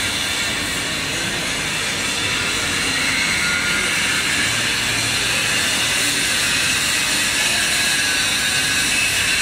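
Steady machinery noise: a constant hiss with a low hum underneath, with no strokes or changes.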